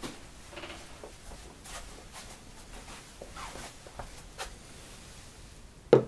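Faint rustling and light handling noises, then near the end one sharp knock as a ceramic mug is set down on a wooden windowsill.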